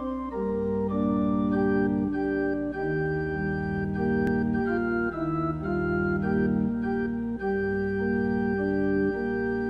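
Organ playing the instrumental introduction to a hymn, in sustained chords that change every second or so.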